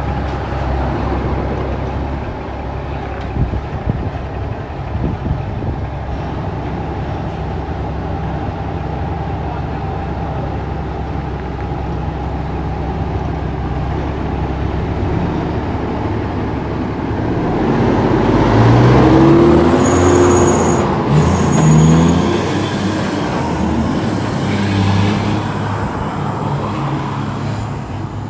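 Heavy truck's diesel engine running steadily. About two-thirds of the way in, it grows louder for a few seconds, its pitch rising and falling, with a brief high squeal near the loudest point.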